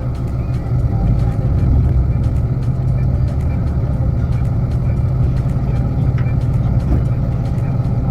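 Engine running steadily with a low drone, getting a little louder about a second in.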